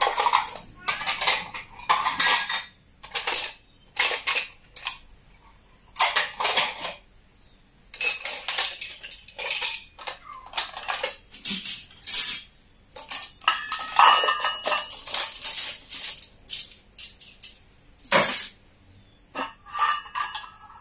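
Ceramic bowls and stainless-steel dishes clinking and clattering as they are stacked by hand into a plastic dish basket: many separate knocks at irregular intervals, in clusters with short pauses between.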